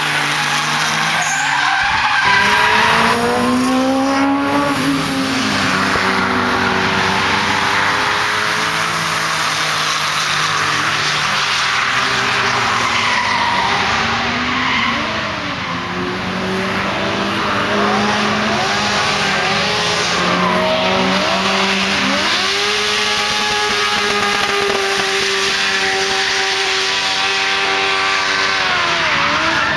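Daihatsu Opti kei car drifting: its small engine revs up and falls back again and again through the corners over the continuous hiss and squeal of skidding tyres.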